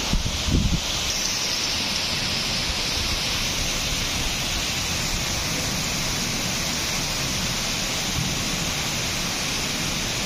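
Heavy rain pouring down steadily on a flooded street: an even, dense hiss. There are a few low thumps in the first second.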